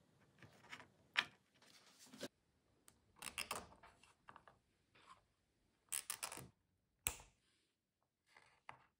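Faint handling noises of wires and nylon cable ties being fitted around a bundle of leads: scattered small clicks and rustles, with two short runs of quick clicks, about three seconds in and again about six seconds in.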